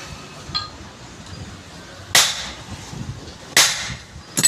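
Hammer blows on a steel punch against a propeller-shaft universal-joint yoke, knocking out the old cross: three sharp metal strikes about a second and a half apart, the last ringing briefly, with a light metallic clink about half a second in.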